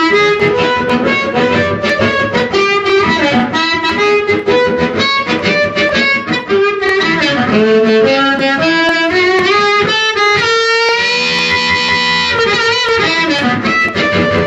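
Amplified blues harmonica in A played through a JT-30 bullet microphone into an amp with a little harp delay, over a backing jam track with guitar. A note bends down and back up about seven seconds in, and a long held chord comes around eleven seconds in.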